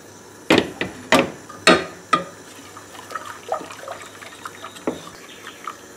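A stirring utensil knocking and clinking against a cooking pot as a milk-and-egg custard mixture is stirred over the heat: four or five sharp knocks in the first couple of seconds, then lighter, irregular clinks.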